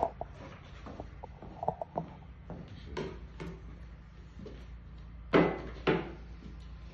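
Light clicks and knocks of a plastic hoof plate being handled and fitted against a horse's hoof, with two louder knocks about half a second apart near the end.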